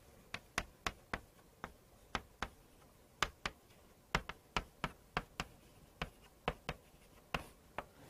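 Chalk tapping and scratching on a chalkboard as Korean characters are written by hand: a run of about twenty short, sharp ticks, several a second, with brief gaps between letters.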